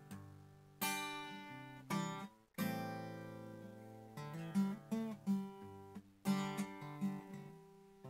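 Guitar recording played back after mu-law companding down to 5 bits: picked notes and chords struck about ten times, each ringing and dying away. The coarse sample levels can leave a faint hiss of quantization noise in the quiet parts.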